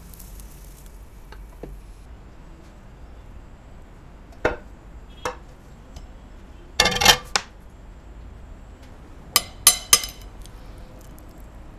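Frying pan and spatula knocking and clinking against a ceramic plate as a cooked omelet is slid out of the pan. A faint sizzle fades in the first second, then come a few sharp clinks, a louder cluster of knocks midway, and three quick clinks near the end.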